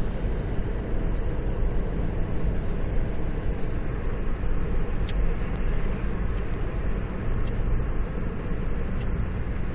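Steady low rumble of a car heard from inside the cabin, with a few light clicks and rustles from paper and plastic cards being handled close to the microphone.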